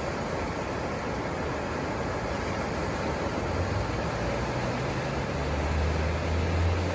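Ocean surf washing onto the beach as a steady hiss, joined about halfway through by a low engine hum that grows louder toward the end.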